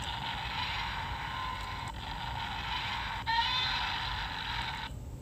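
Built-in sound effect of a Godzilla figure (Ohrai Noriyoshi poster version) played through its small speaker, a tinny, noisy rush lasting about four and a half seconds. It breaks off briefly about two seconds in, comes back louder about a second later, and cuts off sharply near the end.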